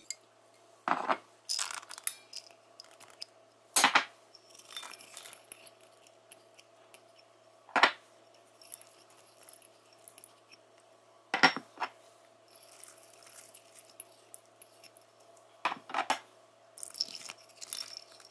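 Utensils and small containers clinking against a stainless steel mixing bowl as ingredients are tipped in: several sharp clinks a few seconds apart, with light rustling between them. A faint steady hum runs underneath.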